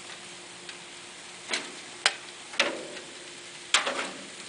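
Four sharp clicks of metal cooking utensils, the last the loudest, over a faint sizzle of tomatoes and nectarines searing on a hot Himalayan salt block.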